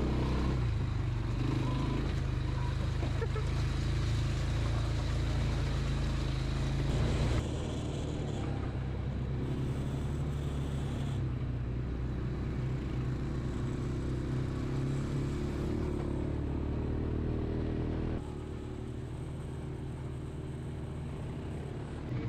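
ATV engine running steadily under way, with low, even engine tones; the sound changes abruptly twice, about seven and eighteen seconds in, as separate stretches of the ride are joined.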